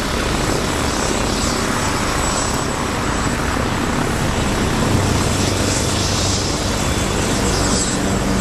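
US Coast Guard HH-65 Dolphin twin-turbine helicopter hovering low just after lift-off: steady rotor and turbine noise with a thin high whine on top.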